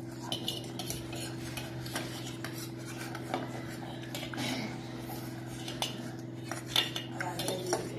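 A spoon and a fork clinking and scraping on stainless steel plates as noodles are eaten, in irregular clicks that come thicker near the end, over a steady low hum.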